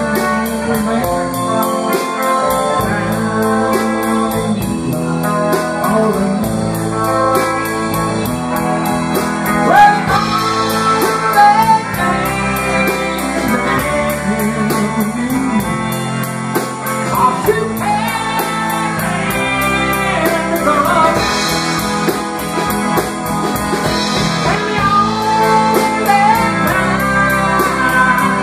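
Live blues-rock band playing: electric guitar, bass guitar, keyboard and drum kit, with a voice singing over them.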